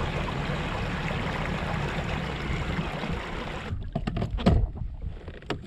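Steady rush of water around a fishing kayak that cuts off suddenly a little over halfway through, followed by a few light knocks and clicks.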